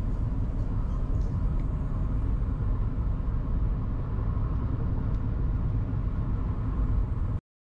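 Steady low rumble of a car driving on a highway, heard from inside the cabin: engine and tyre-on-road noise. It cuts off suddenly near the end.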